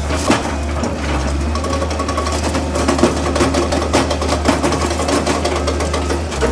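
Excavator working: its engine runs steadily underneath a busy, irregular clatter of metal knocks and rattles.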